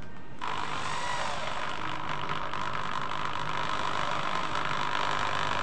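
AEG SB 500 RE corded impact drill starting up about half a second in and running steadily at speed as it bores into a block of wood.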